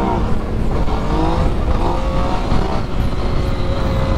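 2018 Yamaha MT-09's inline three-cylinder engine at speed, its pitch falling in a few sweeps as the throttle is closed and the bike slows on engine braking, over heavy wind rush on the microphone.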